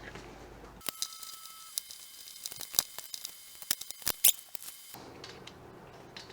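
Hand wire stripper at work on a wire's insulation: a run of small clicks and snips, the loudest snap a little past four seconds in.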